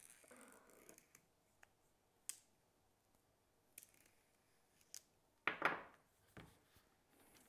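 Plastic shrink-wrap on a hardback book being slit with a hobby knife: scattered faint ticks and scratches, then a louder crackling rustle of the film about two-thirds of the way in.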